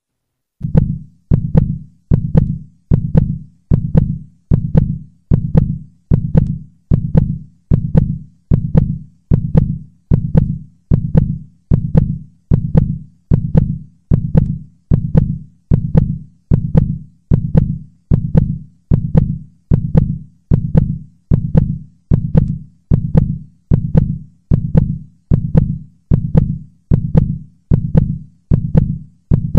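Heartbeat sound effect: a steady, evenly spaced low thud, a little over one beat a second, starting about half a second in.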